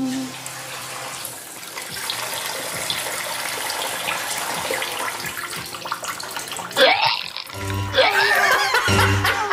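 Kitchen tap running into a sink, with water splashing over hands and a cloth as it is rinsed. Short bursts of music come in near the end.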